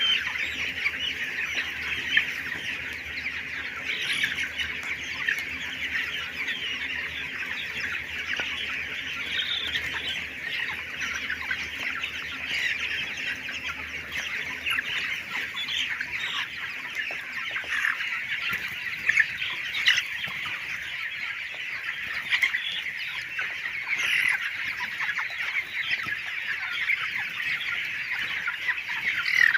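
A large flock of poultry-farm chickens cheeping and clucking continuously, a dense chorus of many overlapping calls, with many small clicks of pecking at the feed.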